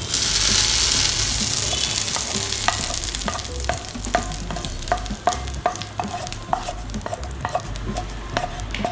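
Hot oil tempering with mustard seeds, dried chili and curry leaves for coconut chutney, breaking into a sudden loud sizzle that slowly dies down over several seconds. Many short sharp clicks run through the sizzle.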